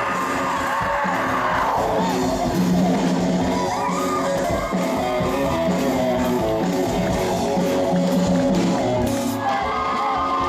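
Live pop band music with guitar, with a wavering sung note held over the first couple of seconds.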